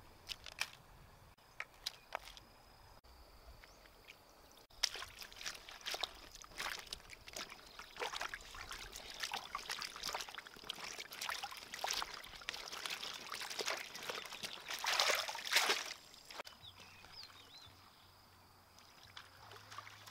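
Hands rubbing and swishing chili peppers in water in a bamboo basket: splashing and sloshing that starts about five seconds in, is loudest near the end of the washing, then dies away. A few light clicks come before it.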